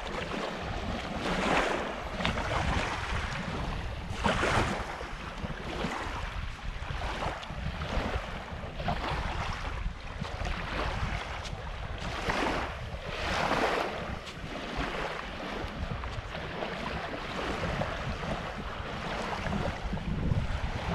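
Small lake waves lapping and washing onto a sandy shore, swelling every one to three seconds, with wind rumbling on the microphone.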